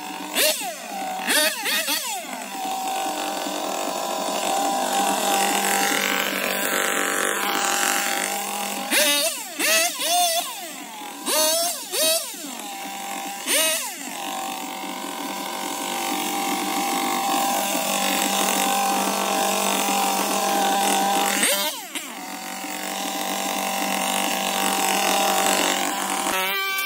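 Makita EB5300TH four-stroke backpack leaf blower running at a steady high throttle, revved up and down in quick bursts several times.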